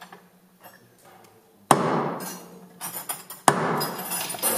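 Two sharp hammer blows on the steel underside of a Panzer IV chassis, about two seconds apart, each ringing out briefly in the hull, with lighter metallic clinks between and after them.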